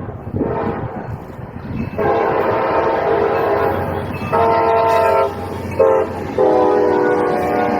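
CSX freight locomotive horn sounding the grade-crossing signal: a long blast, a second long blast, a short one and a final long one, over the low rumble of the approaching train.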